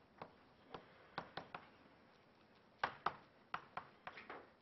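Chalk tapping and scraping on a blackboard as math is written: a string of short, sharp clicks, several in quick succession, with a pause of about a second midway.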